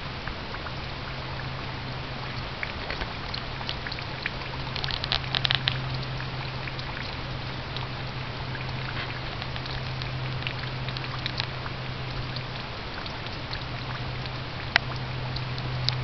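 Light crackling footsteps on dry leaf litter and twigs, a cluster about five seconds in and a few single snaps near the end, over a steady low hum and hiss.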